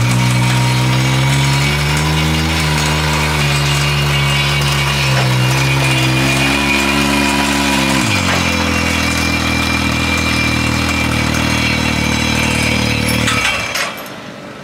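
Polaris RZR Turbo S side-by-side's turbocharged twin-cylinder engine running under light throttle as it drives up onto a car trailer, the revs rising and falling. About eight seconds in it drops to a steady idle, then shuts off near the end.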